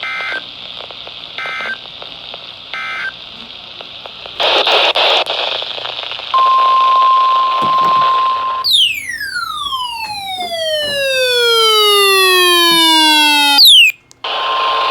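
NOAA Weather Radio broadcast over radio static: three short two-tone data bursts (the end-of-message code), a loud burst of static, then the steady 1050 Hz warning alarm tone for about two seconds. After that comes the loudest sound, a long falling sweep of several tones together, which cuts off suddenly near the end.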